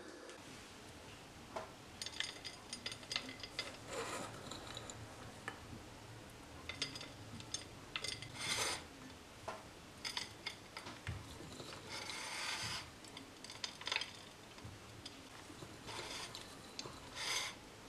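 Chopped nuts being pressed by hand onto the frosted sides of a cake: irregular light clicks and rustles as nut pieces drop onto a metal cooling rack and plate.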